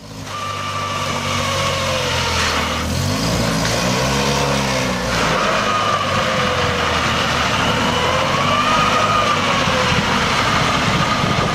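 Fiat 126p's small air-cooled two-cylinder engine running hard under load as it tows a train of heavy farm trailers, its revs rising and falling about three seconds in. The sound fades in at the start.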